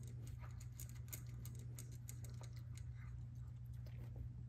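Siberian husky puppy eating dry kibble from a bowl: quick, irregular crunches and clicks of kibble, over a steady low hum.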